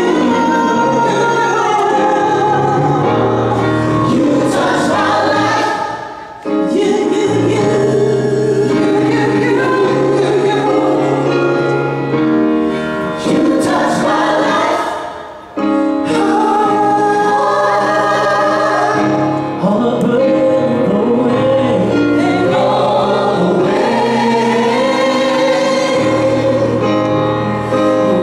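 Gospel vocal group singing in harmony with a live band, a female lead among the voices, over keyboard and bass chords. The sound dips briefly twice, about six and fifteen seconds in.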